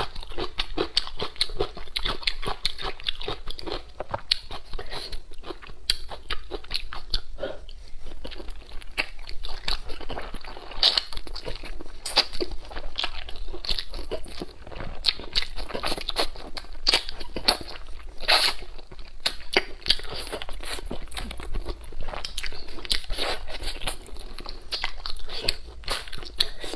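A person chewing and biting mouthfuls of braised pork close to a clip-on microphone: a dense, continuous run of sharp mouth clicks and smacks, with a few louder bites.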